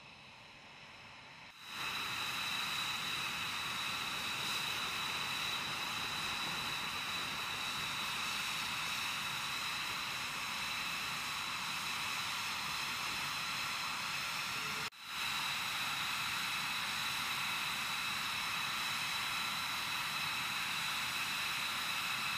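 F-22 Raptor's twin Pratt & Whitney F119 turbofan engines idling on the ramp: a steady rushing jet noise with a high whine. The whine breaks off for a moment about two-thirds of the way through.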